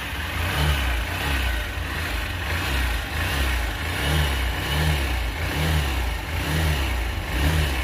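Honda CB Unicorn 160's 163 cc single-cylinder, air-cooled, carbureted engine running steadily and very smoothly, with a low exhaust note that swells gently now and then.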